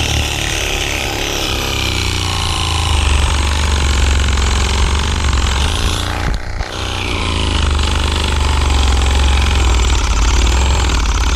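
Corded reciprocating saw running continuously as it cuts through tree roots in a fence post hole, with a brief let-up about six and a half seconds in.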